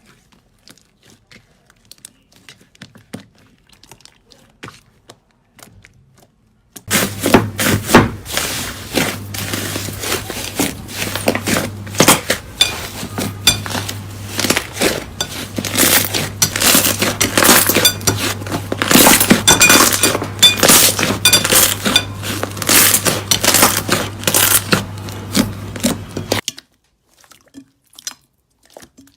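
Slime being squeezed and pressed by hand, with a dense run of sharp crackling clicks and pops that starts abruptly about seven seconds in and cuts off near the end, over a steady low hum. Faint scattered clicks come before it.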